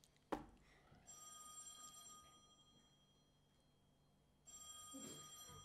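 Faint electronic telephone ringtone, ringing twice with a pause of about two seconds between rings; a single sharp click comes just before the first ring.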